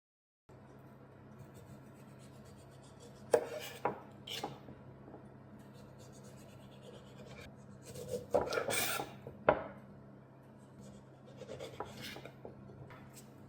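Objects being handled by hand: a few sharp knocks and taps, then a burst of rubbing and scraping with more knocks about eight to nine and a half seconds in, over a steady low hum.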